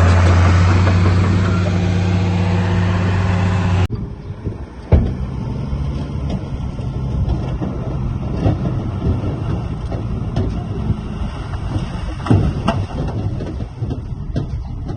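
Heavy diesel construction machinery running loudly and steadily. About four seconds in, the sound switches abruptly to a quieter, rougher engine with scattered metallic clanks and knocks, including one sharp knock a second later.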